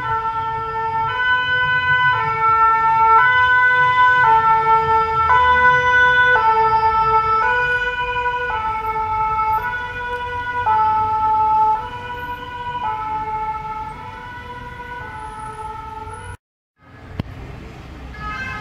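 French two-tone 'pin-pon' siren of a sapeurs-pompiers VSAV rescue ambulance, switching between two notes about once a second. It is loudest in the first half and fades as the vehicle passes and moves away, over a low rumble of engine and road traffic. The siren stops abruptly near the end, giving way to street traffic noise.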